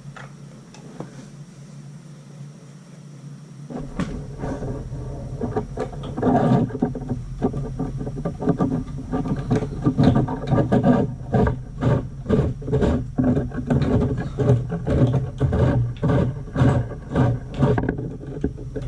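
Pilot igniter on a gas water heater clicked over and over, about one to two times a second, starting about four seconds in: the pilot has not yet caught.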